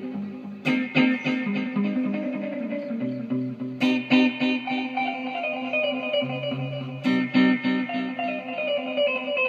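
Instrumental music: plucked string notes over a low bass line, with a strong accent about every three seconds.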